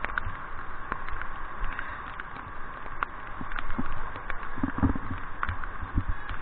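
River water rushing and splashing around a raft, with many small scattered taps and knocks and a few low thuds about halfway through.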